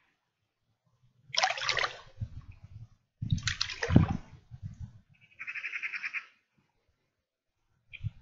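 Water splashing and sloshing as a person wades through shallow river water in a long dress, in two louder spells about a second and a half and about three and a half seconds in. A short rapid rattling trill sounds just past the middle.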